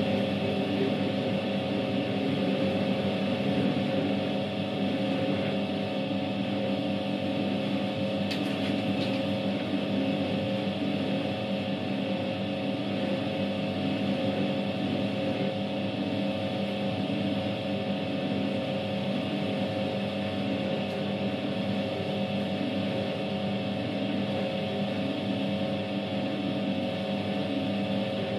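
Światowit M4 impeller washing machine running a wash: its SED-110-4 motor hums steadily with constant low tones while the impeller churns the soapy water and laundry in the tub.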